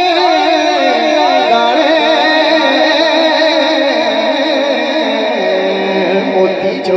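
A male voice singing a naat in a long, wavering, ornamented melodic line over a steady drone, settling onto a held lower note about five seconds in.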